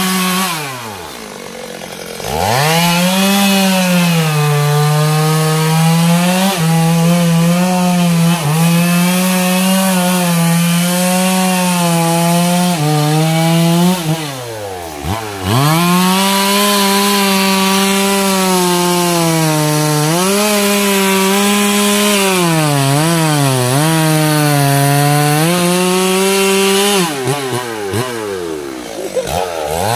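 Two-stroke chainsaw cutting into the base of a teak trunk at high revs. It drops to idle about a second in and again around the middle, then revs back up, and its pitch sags and recovers briefly a few times as the chain loads up in the cut.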